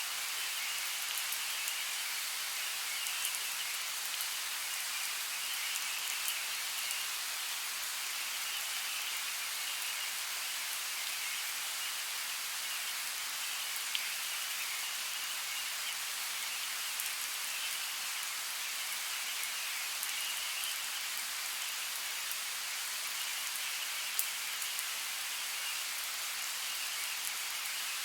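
Steady rainfall in a forest, an even hiss with scattered sharp drop ticks on leaves and surfaces.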